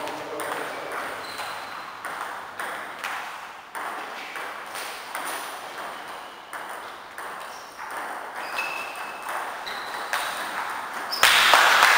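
Table tennis rally: the celluloid ball clicks off rubber paddles and bounces on the table about twice a second, some hits ringing with a short ping. A sudden loud burst of noise comes near the end.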